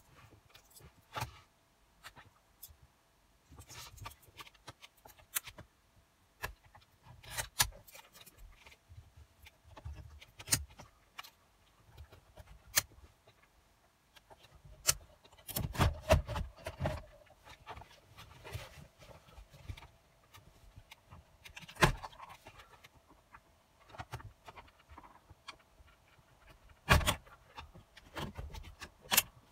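Metal radio-removal keys clicking and scraping in the slots of an Audi A4 B6/B7's Navigation Plus head unit, and the plastic dash trim around it being pulled loose. An irregular run of sharp clicks and rattles, the loudest a few seconds apart in the second half.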